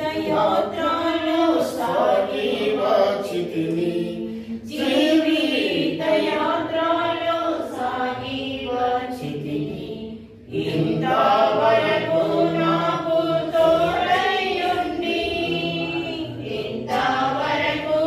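A group of voices singing a Telugu Christian hymn, in sung phrases with short breaths about four and a half and ten and a half seconds in.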